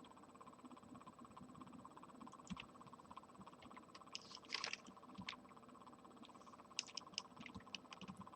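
Near silence with faint, scattered clicks of a computer mouse, a few of them bunched together near the end.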